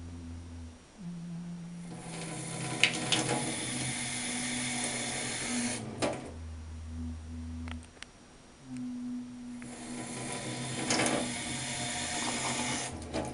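Water rushing through a chrome bath mixer tap with a damaged diverter as its lever is opened and shut, in two runs of hiss with a low steady hum of tones underneath that shifts in pitch; the faulty diverter lets the tap leak.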